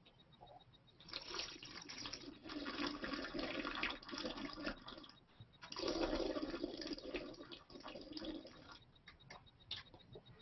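Wine being slurped in the mouth, air sucked noisily through it to aerate it for tasting. It comes in two long slurps, with a short break about five and a half seconds in.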